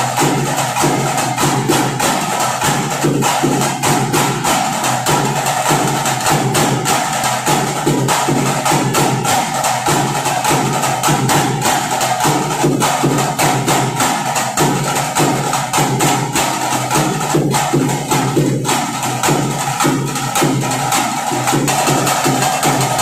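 Fast, steady folk percussion, drums with sharp wooden clicks, played without a break as accompaniment to a dance.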